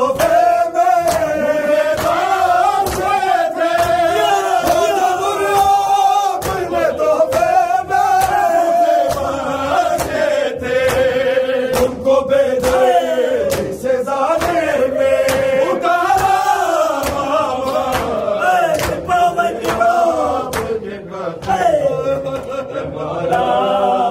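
A group of men chanting an Urdu noha (Shia lament) together, the melody rising and falling, with sharp hand slaps of chest-beating matam throughout.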